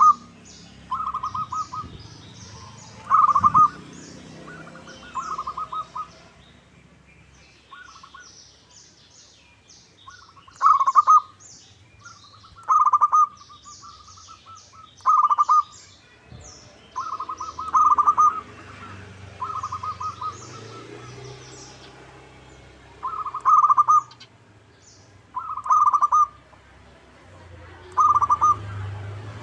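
Zebra dove (perkutut) cooing: short, rapid stuttering coos repeated about every two seconds, with faint high chirps of small birds over them.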